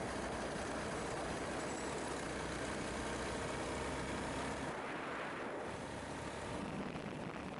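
Honda CBR250R motorcycle on the move: engine running under steady road and wind noise. The noise eases briefly about five seconds in and again near the end.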